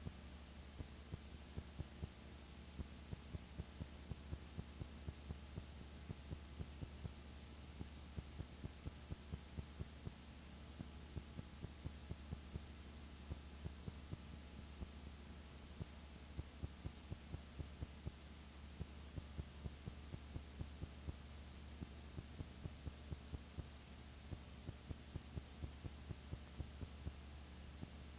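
Faint steady low hum with soft clicks about three times a second: the background noise of a silent home-movie transfer, with no recorded sound of the scene.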